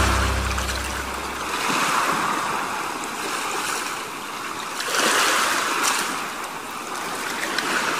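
Surf: a rushing noise of waves that swells and fades about every three seconds, while the last low note of music dies away in the first two seconds.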